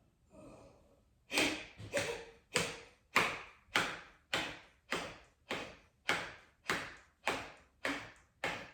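Kapalbhati (breath of fire) breathing: a faint inhale, then a steady run of sharp, forceful exhalations, nearly two a second. Each puff of breath starts abruptly and trails off.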